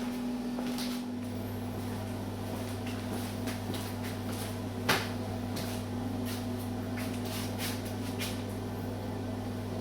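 Small hard objects clicking and knocking over a steady mechanical hum, with one louder sharp knock about five seconds in.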